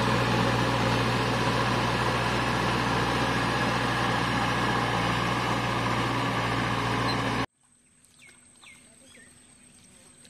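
Tractor engine running steadily with a low hum as its cage wheels churn through a flooded paddy field. About seven and a half seconds in, the sound cuts off abruptly, leaving a quiet field with a few faint bird chirps.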